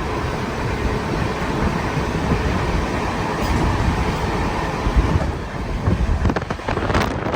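A vehicle running steadily, a low rumble with a rushing noise. Over the last couple of seconds uneven gusts of wind buffet the microphone.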